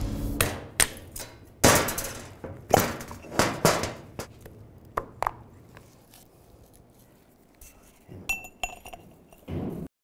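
Steel parts of a CV axle joint clinking and knocking together: a string of sharp, irregular clinks through the first half, then a few short ringing pings near the end.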